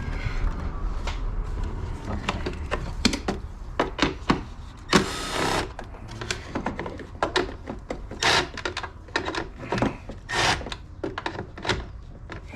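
Hand tools working on 10mm fasteners under a car's hood: irregular clicks, clacks and knocks of a wrench or ratchet and loosened parts, with a short harsh rasp about five seconds in.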